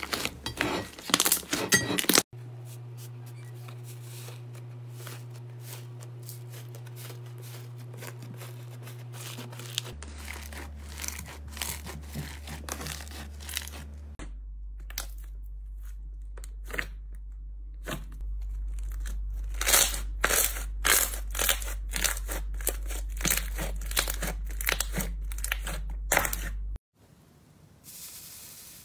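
Slime being squeezed and pulled by hand, giving quick crackles and pops, in several short clips one after another. A steady low hum runs under each clip and changes at each cut.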